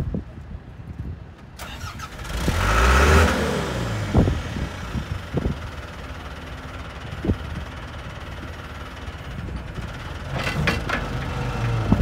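John Deere 310C backhoe's diesel engine starting: it cranks and catches about two seconds in, then idles steadily, picking up again near the end.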